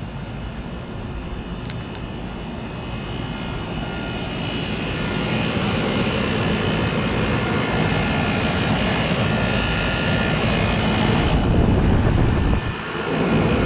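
Trane XB series central air conditioner condensing unit running in cooling mode: a steady drone of compressor and fan, growing louder as it is approached, with a brief dip near the end.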